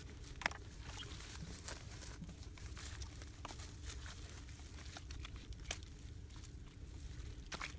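Hands scraping and patting loose, damp soil, with scattered small crackles and crunches.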